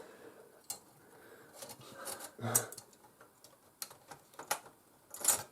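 Scattered light clicks and taps of a screwdriver and small metal parts being handled inside a computer case, the loudest near the end.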